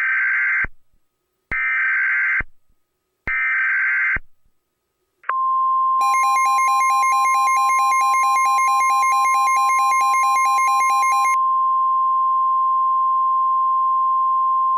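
Emergency Alert System activation: three short bursts of screeching SAME digital header data, then the steady 1050 Hz NOAA Weather Radio warning alarm tone. A pulsing, buzzy tone is layered over the first five seconds or so of the alarm tone.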